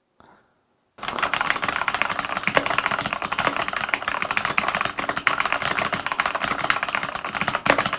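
Fast, continuous typing on a Galax HOF Gaming mechanical keyboard with Cherry MX Brown switches: a dense clatter of key clicks that starts about a second in.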